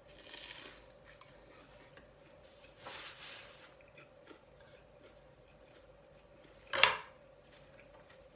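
Tableware handled during a meal: one sharp, loud clink of a spoon against a glass bowl about seven seconds in, with two softer crunchy eating noises earlier. A faint steady hum runs underneath.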